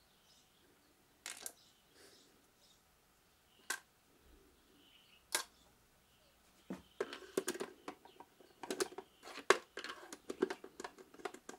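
Hard plastic clicks and knocks as the soup maker's plastic base and back are handled: a few single clicks, then from about seven seconds in a busy run of rattling taps and knocks.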